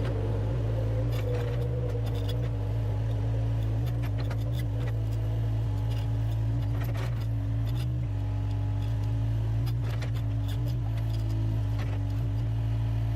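Radio-controlled model excavator working: a steady motor hum with scattered light metallic clicks and clinks.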